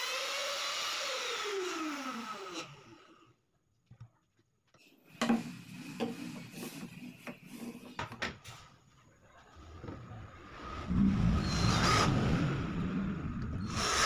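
A trim router's motor spinning down after switch-off, its whine falling steadily in pitch and dying away over about three seconds. Then a few knocks of boards being set down on the bench, and near the end a cordless drill boring into the wooden board with a loud whirring.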